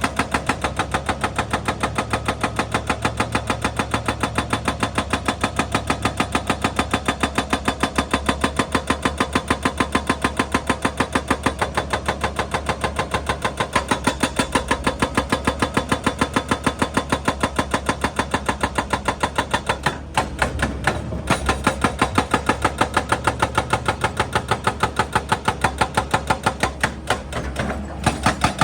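Excavator-mounted hydraulic breaker hammering rock: a fast, even train of blows over the running engine, pausing briefly twice, about two-thirds of the way through and near the end.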